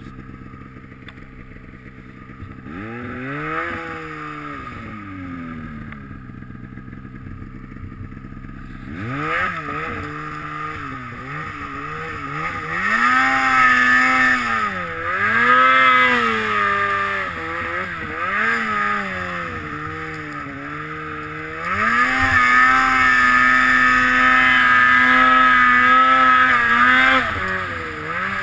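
Snowmobile engine being ridden through powder snow, its pitch swelling up and down as the throttle is worked. It starts fairly quiet, then revs repeatedly, holds a high steady pitch for several seconds in the last third, dips briefly near the end and climbs again.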